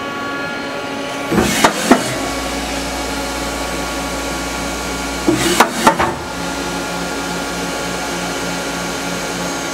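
Hardinge GT27SP CNC turning center running a looped program with its spindle at 3,500 rpm: a steady machine hum and whine. Two short bursts of clunks come about a second and a half in and again near six seconds.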